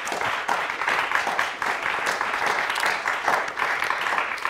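Applause, a dense patter of many hands clapping, fading out near the end.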